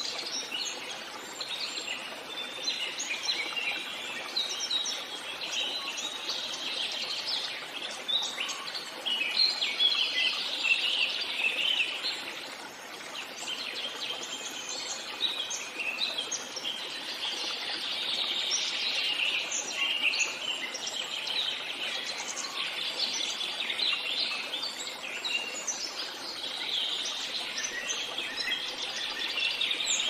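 Many small birds chirping continuously: a dense, overlapping chorus of short high calls over a faint steady hiss.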